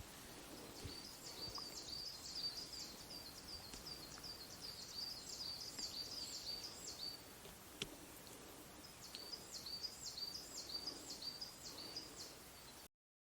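A small songbird singing: a fast run of repeated high, sweeping notes, stopping for a couple of seconds and then starting again, over faint outdoor background. A single short click comes near the middle, and the sound cuts off to silence just before the end.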